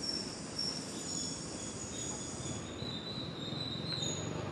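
Insects trilling: several high, thin steady tones that come and go and overlap, over a constant low noise.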